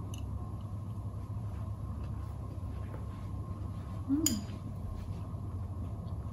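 Steady low hum of room tone, with small utensil sounds from eating soup. About four seconds in, a metal utensil clinks sharply against a ceramic soup bowl, together with a brief hummed voice sound.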